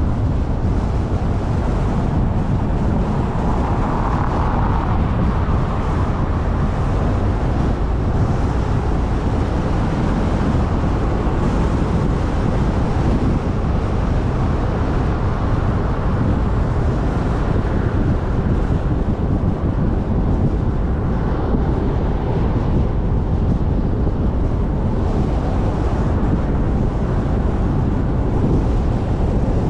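Steady road and wind noise from a car driving along, a constant low rumble with wind buffeting the microphone.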